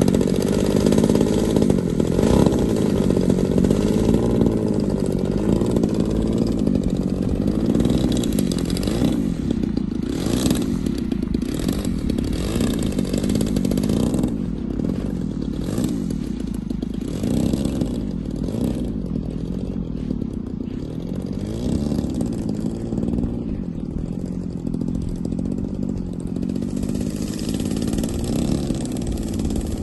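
Engine of a large-scale radio-controlled Pitts Special model biplane running as it taxis, its pitch rising and falling with the throttle and slowly fading as it moves away.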